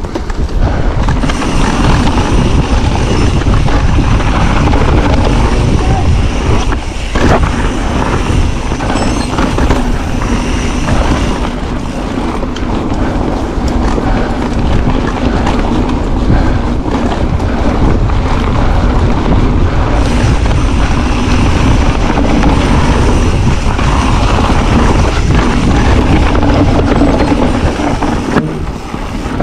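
Wind buffeting an action camera's microphone, mixed with the tyre and frame noise of an electric mountain bike riding a dirt trail. The noise runs loud and steady, dipping briefly a few times.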